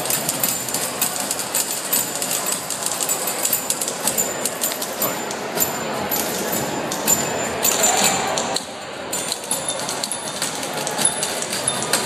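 Several typewriters typed together as a percussion ensemble: dense, fast clacking of keys and typebars with a brief lull about nine seconds in.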